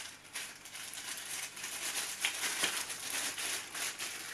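Clear plastic packaging bag crinkling as it is handled and unwrapped, with a few sharper crackles a little over two seconds in.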